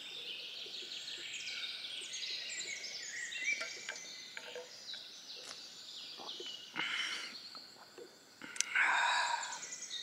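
Woodland songbirds chirping and trilling steadily. Two short slurps of hot coffee sipped off a spoon, about seven and nine seconds in, the second louder.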